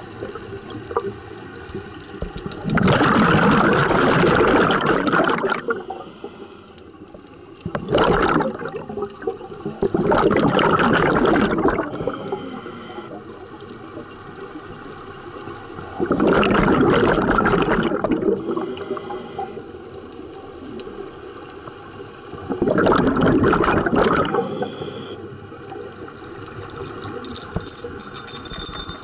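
Scuba regulator exhalation heard underwater: five bursts of rushing, gurgling bubbles, each one to two seconds long and several seconds apart, with quieter stretches between breaths.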